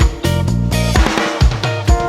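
Background music with a drum kit, bass and guitar: a steady beat of bass drum and snare hits, with a brief drum fill near the middle.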